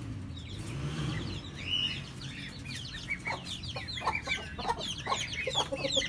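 Chickens clucking and chicks peeping, building into a rapid flurry of short, high calls in the second half. This is a flock alarm raised at a kite (bird of prey) overhead.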